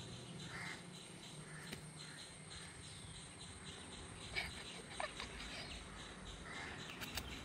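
Quiet outdoor ambience: faint bird calls and insects, with a few short, soft chirps.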